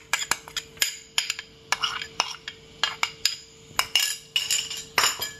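Quick, irregular clinks and taps of a bowl and utensil knocking against a stainless steel pot, about three a second, as chopped lemongrass is emptied into it.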